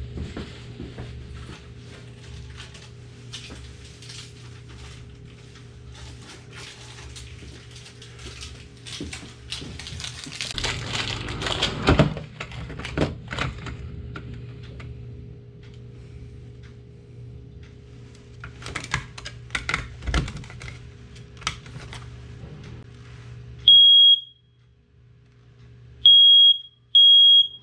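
Smoke alarm being handled during a battery change, with clicks and rustling, then sounding loud high-pitched beeps near the end: one beep, a pause, then three quick beeps in the three-beep alarm pattern.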